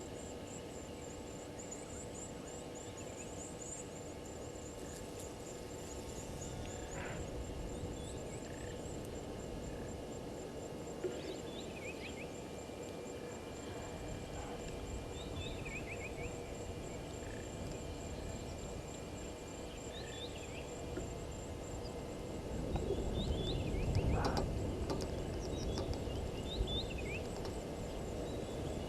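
Outdoor bush ambience at a waterhole: birds calling with short chirps, with fowl-like clucking calls among them, over a continuous high insect trill. Noise swells for a few seconds near the end.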